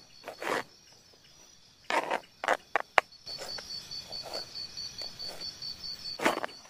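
Knife strokes chopping on a plastic cutting board: one near the start, a quick cluster of sharp knocks about two to three seconds in, and another near the end. Through the second half an insect trills in a steady, evenly pulsing high tone.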